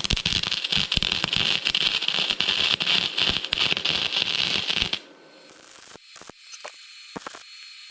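Electric arc welding on a metal frame: a steady, dense crackle while a bead is run to fill a hole burned through the metal. It cuts off about five seconds in, leaving a few faint clicks.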